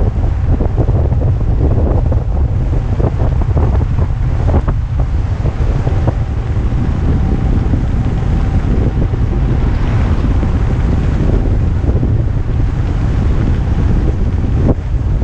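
Strong, steady wind buffeting on the camera's microphone from riding a kickbike fast downhill.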